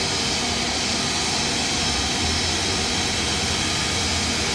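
Airliner engines running steadily: an even rushing noise with a faint, steady high tone, holding level throughout.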